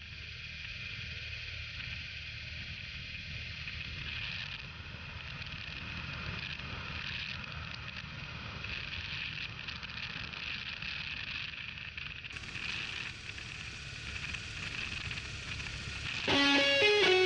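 Riding noise picked up by a camera on a touring motorcycle: steady wind rush and a low engine and road rumble, with a thin steady high whine. About a second before the end, much louder electric guitar music comes in.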